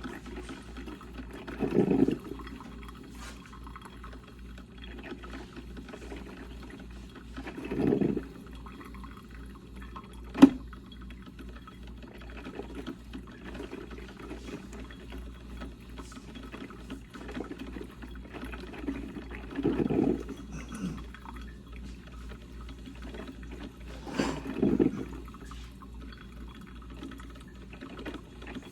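Percolator coffee maker gurgling as it brews, with louder bursts of gurgling about two, eight, twenty and twenty-four seconds in. A single sharp click about ten seconds in, over a low steady hum.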